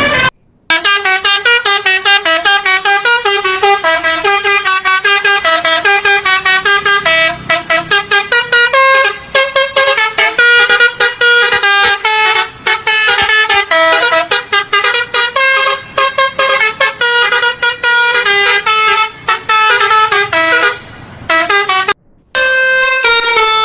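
Basuri bus telolet horn, a multi-tone musical air horn, honking out a fast tune of short notes that hop up and down in pitch. It breaks off briefly just after the start and again near the end.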